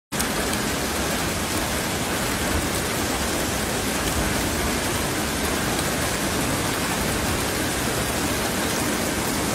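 Hail and rain falling hard on a car roof and the street: a loud, steady, dense hiss of many small impacts.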